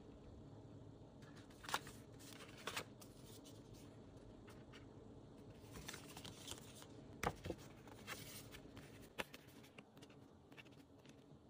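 Faint handling of K-pop album contents: cardstock photocards and paper inserts picked up, turned over and the photobook's pages leafed, with light rustling and a few sharp card taps and clicks.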